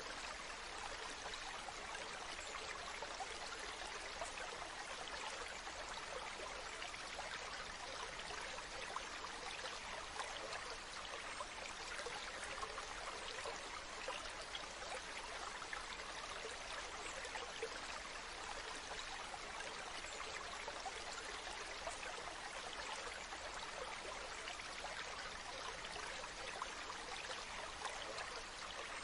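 Waterfall: water falling and splashing in a steady, unbroken rush, with fine splashes and trickles.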